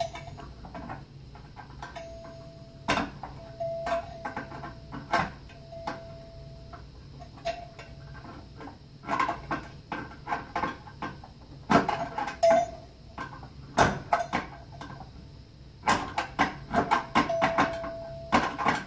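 Small irregular clicks, taps and scrapes of a hand tool working at the screw terminals of a NuTone Chord-Tone door chime to pry the wires free, thickening into runs of quick clicking about nine seconds in, around twelve seconds and near the end. A faint steady high tone comes and goes several times.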